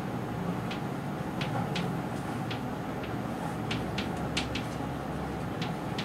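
Chalk writing on a chalkboard: a string of short, sharp, irregularly spaced chalk taps and clicks over a steady low room hum.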